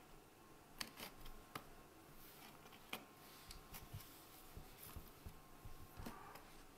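Faint, irregular scratching and light clicks from a kitten's claws and paws scrabbling on a corrugated cardboard scratcher as it rolls about.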